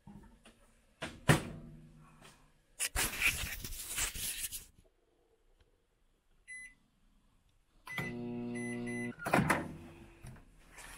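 Microwave oven: a door click, handling noise, and a short keypad beep. Near the end the oven hums for about a second, gives three short beeps as the timer runs out, and stops suddenly with a click of the door.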